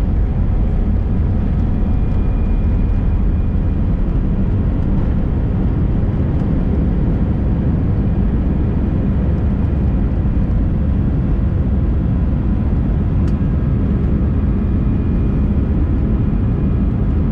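Steady cabin noise inside an Airbus A319: jet engines and airflow heard as an even, low-heavy rumble, with faint steady tones above it.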